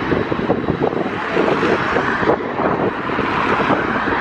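Saab 340's twin turboprop engines running at power, a steady loud noise, with wind buffeting the microphone.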